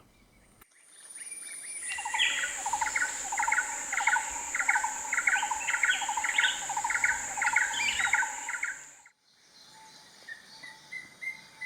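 A blue-eared barbet and a green-eared barbet calling together, each repeating a short note about twice a second. The blue-eared barbet has the higher tone and the green-eared barbet the deeper one. A steady high-pitched insect drone runs behind them, and both stop at a cut about nine seconds in, leaving only faint calls.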